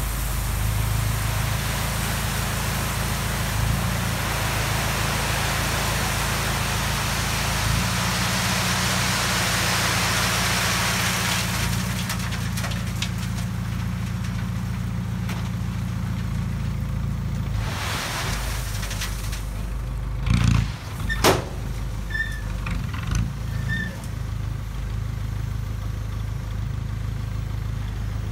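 Isuzu NKR58E tipper's 4BE1 four-cylinder diesel running steadily while 3/4-inch aggregate pours and rattles off the raised tipper body, a rushing hiss that dies away about twelve seconds in. A couple of loud knocks come about two-thirds of the way through.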